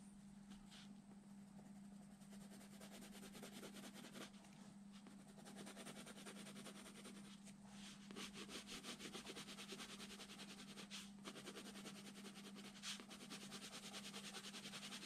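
Coloured pencil shading on drawing paper: faint scratching in rapid short strokes, a few separate strokes at first, then a busy run from about eight seconds in. A steady low hum underneath.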